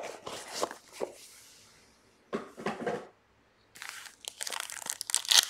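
Cardboard trading-card box handled and its lid lifted, with light scrapes and taps. After a brief gap, a plastic pack wrapper crinkling and tearing, loudest near the end.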